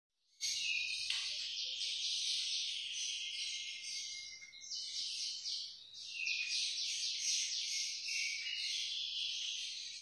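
Dense, high-pitched chirping and trilling that runs on steadily, breaking off briefly twice around the middle.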